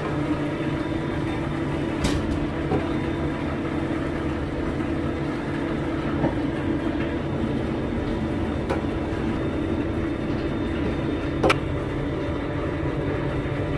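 A machine running with a steady hum, with three sharp clicks or knocks along the way, the loudest near the end.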